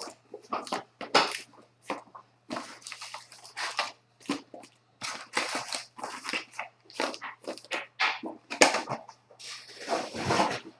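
Wrappers of 2017 Topps Archives baseball card packs crinkling and tearing as the packs are ripped open, with the cards rustling in hand, in a run of quick irregular crackles.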